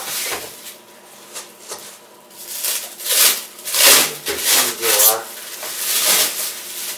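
Plastic packaging wrap crinkling and rustling in repeated bursts as wrapped parts are handled and pulled out of a cardboard box.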